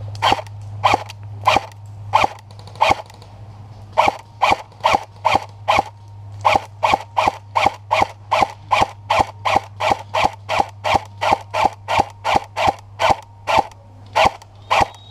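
Airsoft rifle firing single semi-automatic shots in a long steady string, about thirty-five cracks: slower at first, then after a brief pause about three a second.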